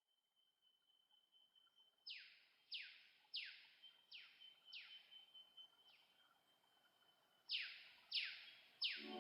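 Faint animal calls: a run of quick falling calls, each sweeping from high to lower pitch, about one and a half a second, five in a row and then three more near the end, over a thin steady high tone.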